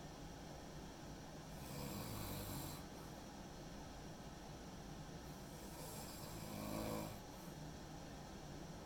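A sleeper snoring: two snores, about two and seven seconds in, the second the louder, with a buzzing pitch.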